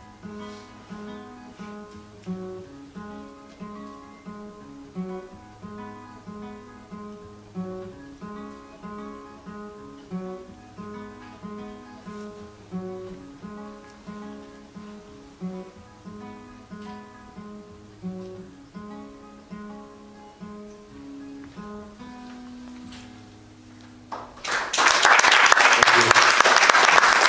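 Acoustic guitar playing an instrumental outro, picked notes in a steady repeating pattern, settling on a held chord. Near the end audience applause breaks out and is the loudest sound.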